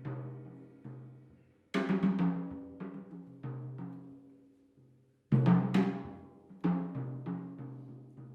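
A plucked string instrument playing a sparse jazz solo: single notes and chords, each struck sharply and left ringing to die away, in phrases with short pauses between them.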